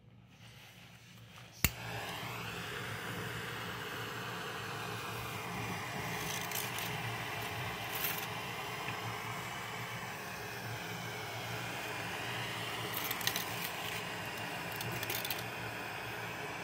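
A sharp click about one and a half seconds in, then a gas burner's flame hissing steadily.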